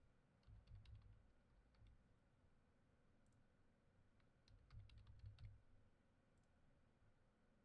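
Faint computer keyboard typing in two short flurries of keystrokes, about half a second in and again about four seconds in, each key press with a soft thump from the desk.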